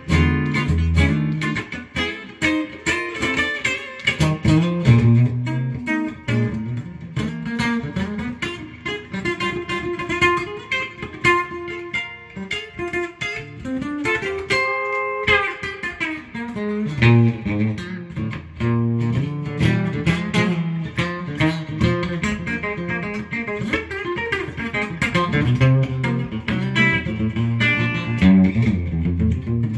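Electric guitar played through a Fender Twin amplifier, picking jazz-blues single-note lines mixed with chords and low bass notes.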